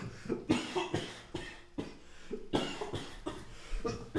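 A man in a coughing fit, many short coughs in a row, choking on cigarette smoke.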